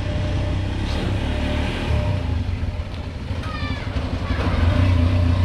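Honda Tiger single-cylinder motorcycle engine of a homemade mini dump truck running under a heavy load of sand at low speed; it eases off around the middle and pulls harder again near the end.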